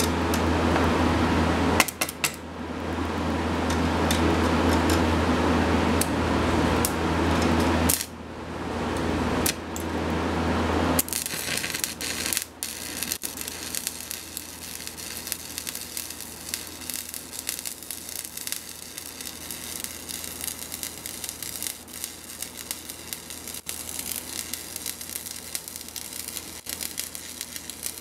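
Electric arc welding on a steel crankshaft: a fast, dense crackle of the arc that starts about eleven seconds in and runs on steadily. Before it comes a steady low hum, broken briefly twice, which stops as the crackle begins.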